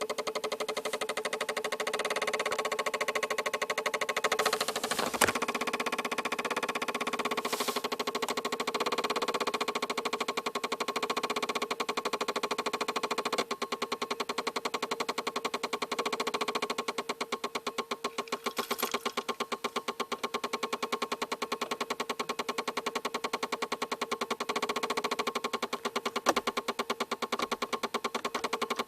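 Fast, even mechanical ticking with a steady hum from under the steering wheel of an Audi 80 1.9 TDI: the odd noise the owner is trying to pin down. It pulses in level in a steady rhythm from about halfway through.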